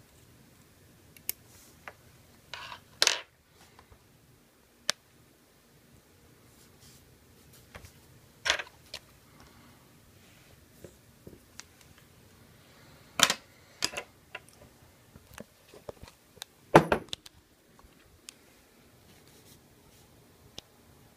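Scattered, irregular clicks, taps and short scrapes of metal forceps and a scalpel working a boxwood leaf on a paper towel. The loudest knock comes about four-fifths of the way through.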